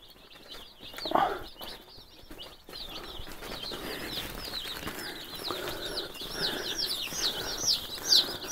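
Day-old Freedom Ranger chicks peeping: many short, high, falling peeps that grow busier and louder toward the end. There is a brief lower-pitched sound about a second in.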